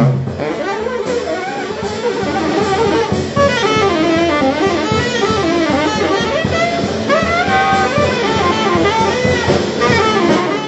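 Small jazz combo playing live: a saxophone melody over piano, bass and drum kit, the drums keeping a steady beat. The music cuts off abruptly at the very end.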